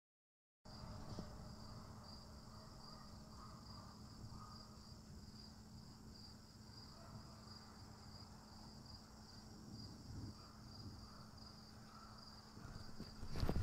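Crickets chirping faintly in a steady, evenly pulsing trill over a low rumble, starting abruptly about half a second in. A few louder knocks come near the end.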